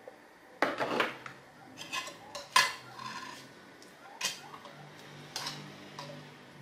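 Kitchen utensils clinking and knocking against dishes and pots: a handful of separate clinks, the loudest about two and a half seconds in.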